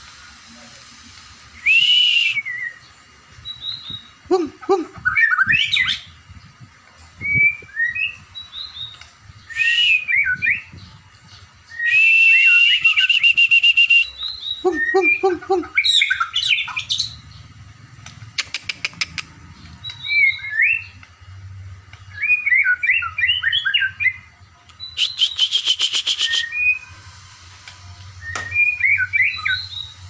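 A caged white-rumped shama (murai batu) singing. Loud, varied whistled phrases, some gliding, come in bursts with short pauses between them, mixed with harsh, fast rattling trills.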